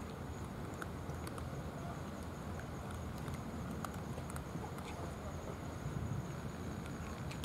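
Cat eating dry kibble from a plastic dish, its chewing giving scattered, irregular small crunching clicks over a steady low background rumble.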